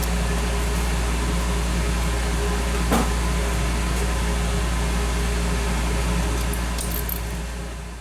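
Steady low background hum from a fan or ventilation-type machine, with a single faint click about three seconds in; the hum fades away near the end.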